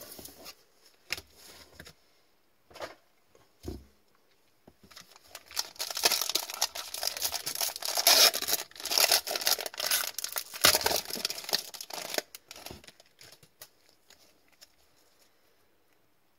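Foil Upper Deck hockey card pack being torn open and crinkled by gloved hands: a few light handling taps at first, then about seven seconds of dense crinkling and tearing.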